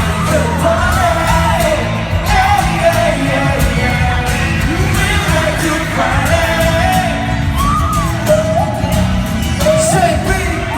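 Live pop song with a singer over heavy bass through a hall PA, with fans yelling.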